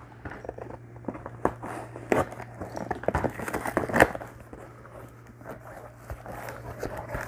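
Mail packaging being unwrapped by hand: irregular rustling and crinkling with a few sharp crackles and taps, the loudest about four seconds in. A steady low hum sits underneath.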